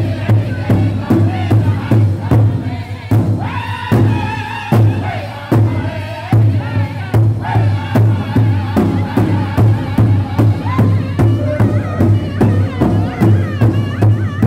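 Powwow drum group singing an intertribal song: several men's voices singing together over a large bass drum that the group strikes in a steady beat of about three strikes a second. The beat thins briefly a few seconds in, then carries on.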